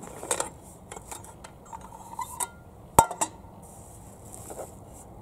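Aluminium mess tin being opened: light clicks and scrapes as its pan-lid is worked off, then a sharp metallic clank about three seconds in, ringing briefly, as the lid is set down on the wooden table.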